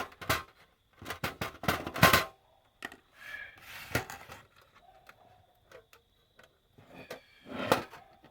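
Clicking and knocking of hand tools against the small metal and plastic parts of an electronics box being taken apart: a quick run of clicks in the first two seconds, a single knock about four seconds in, and another clatter near the end.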